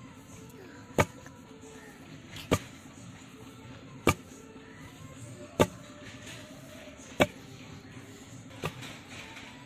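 A long wooden pestle with a metal-capped end pounding paddy in a stone mortar: six heavy thuds about a second and a half apart, the last one lighter. The strokes are husking the paddy by hand into hand-pounded rice.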